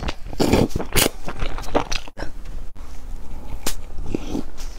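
Close-miked eating sounds: a loud slurp from a bowl about half a second in, then chewing and short wet mouth clicks on steamed stuffed buns dipped in sauce.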